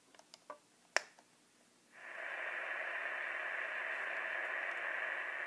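A few small clicks, with a sharp click about a second in, then about two seconds in a National Panasonic Toot-a-Loop transistor radio starts giving a steady hiss of static from its small speaker. It is not on a station.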